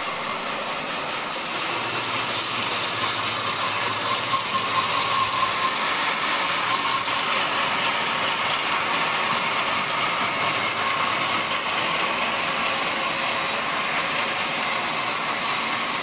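Large band saw ripping a thick timber beam lengthwise: a dense, steady whirring of blade through wood that holds on without a break.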